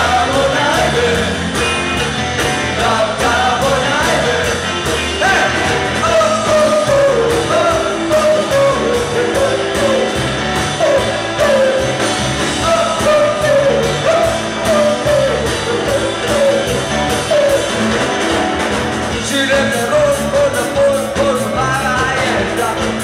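Live rock band playing through a PA: electric guitars, electric bass and drums, with a wavering lead melody line over a heavy low end.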